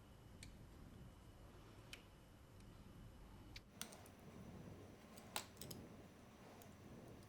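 Faint, scattered clicks of small plastic speed-cube parts being handled while the cube's centre screws are worked on. There are about half a dozen sharp ticks, irregularly spaced, with the loudest a little past the middle, over a low steady room hum.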